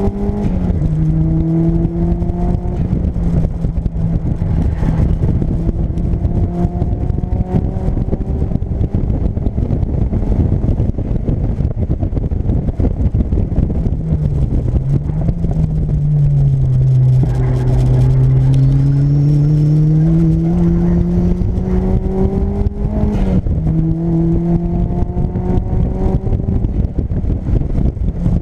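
Turbocharged Mazda MX-5's engine heard from inside the cabin under hard acceleration. Its pitch climbs through the revs and drops back at quick gear changes. About halfway through the pitch sags for a few seconds as the throttle eases, then it climbs again to another shift.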